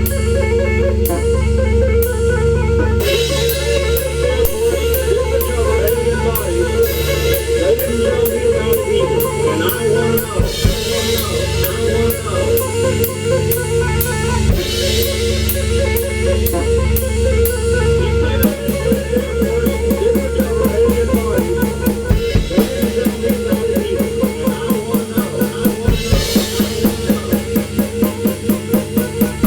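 Drum kit improvisation with kick, snare and rimshots played over a sampled backing track with guitar. The drumming grows denser and more pronounced about two-thirds of the way in.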